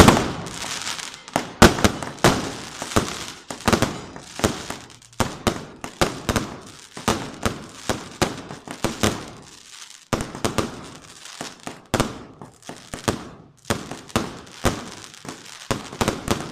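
Aerial fireworks going off: a rapid, irregular string of sharp bangs and crackling bursts, several a second, broken by a few brief lulls.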